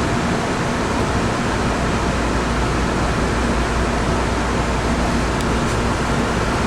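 Steady rumble and hum inside a CRRC-built MBTA Orange Line subway car, with a faint constant tone over even noise.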